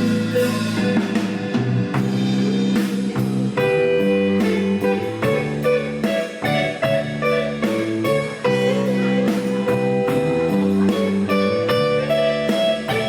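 Live band playing an instrumental passage of a slow, bluesy song: guitar lines over a drum kit keeping a steady beat.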